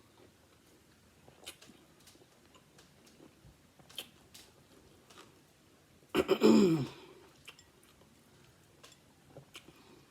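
A person eating, with faint chewing and mouth clicks. About six seconds in comes a short, loud vocal sound that falls in pitch.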